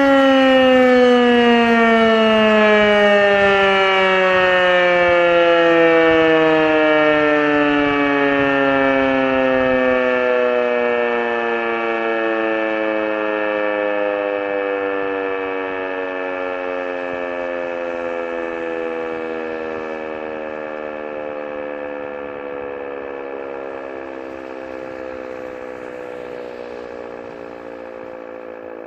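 Rosenbauer FS 8 electro-mechanical fire siren coasting down at the end of a siren test: its wail falls slowly and steadily in pitch and fades away.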